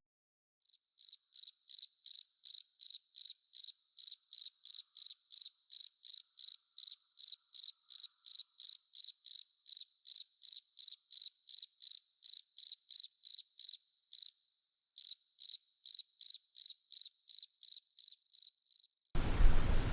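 Cricket chirping sound effect: even, high chirps about three a second over dead silence, with a short blurred stretch a little past the middle. It is the edited-in 'crickets' effect for an awkward silence, not a live recording.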